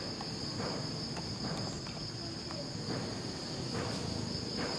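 Steady high-pitched drone of an insect chorus, with faint scattered ticks and rustles beneath.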